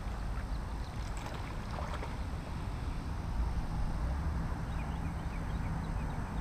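Wind buffeting the microphone, a steady low rumble, with a few faint short ticks and rustles on top.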